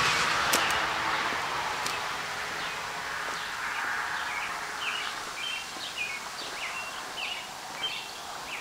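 A small bird chirping, short high notes repeated about twice a second from about three seconds in, over a steady outdoor hiss that slowly fades.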